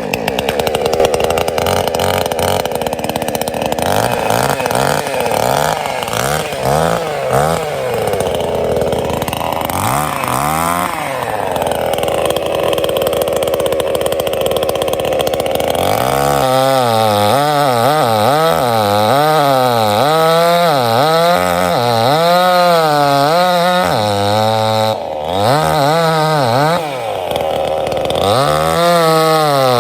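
Sungel 58cc two-stroke chainsaw running at high speed, cutting into a tree. The engine note holds steady at first, then from about halfway through rises and falls over and over as the chain is pushed into and eased out of the wood.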